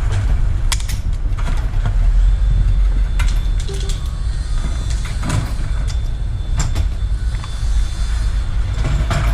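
Wind buffeting the microphone in a loud, uneven rumble, with scattered sharp clicks and knocks of equipment being handled.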